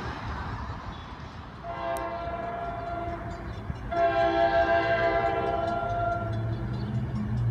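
North Jersey Coast Line train's air horn sounding two long chord blasts, each about two seconds, the second louder. A low rumble builds near the end.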